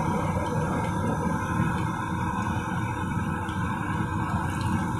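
Gram-flour-battered pakoras sizzling steadily as they deep-fry in hot oil in a wok, over a low rumble.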